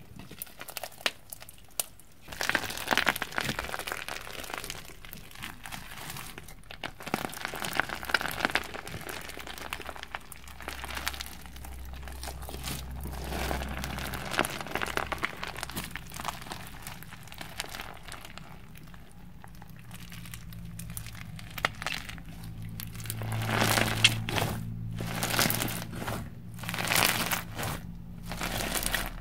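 Crunchy floam slime, sticky slime packed with foam beads, squeezed and poked by hand: irregular runs of crackling and crinkling as the beads pop and shift, loudest near the end.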